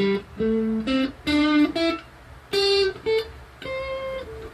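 Electric guitar (Cort G210 through a Cort CM30 amp) picking single notes of the A minor pentatonic scale, about ten notes one at a time with short gaps between them.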